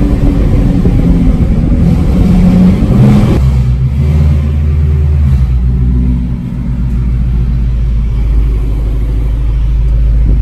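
Whipple-supercharged Shelby GT350R's 5.2-litre flat-plane-crank V8, heard from inside the cabin, running loud at low speed. About three seconds in the sound changes abruptly to a steady, deep rumble.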